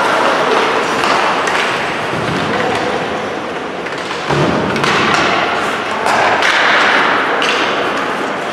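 Ice hockey play in a rink: skates scraping the ice and sticks and puck knocking, with a heavy thump about four seconds in and a few sharper knocks after it.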